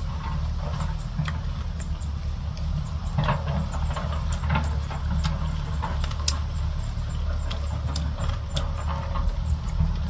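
Light clicks of chopsticks and a spoon while eating, scattered about once a second, over a steady low rumble.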